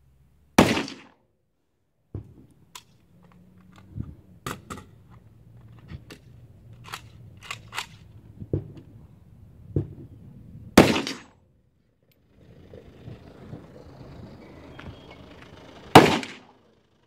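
Single gunshots from a competitor's firearm: three loud reports, about half a second in, about 11 seconds in and near the end, each with a short echo. Many fainter sharp cracks come in between.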